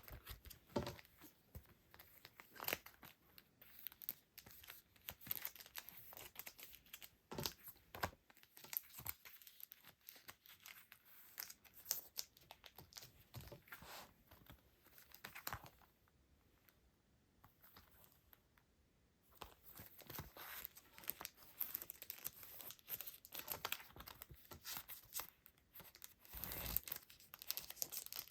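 Hands handling plastic wrapping and paper packaging: irregular crinkling, rustling and tearing, with a short quieter lull a little past halfway.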